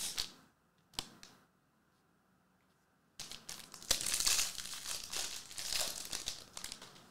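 A single sharp click about a second in, then a trading-card pack's foil wrapper crinkling and tearing as it is opened, starting about three seconds in.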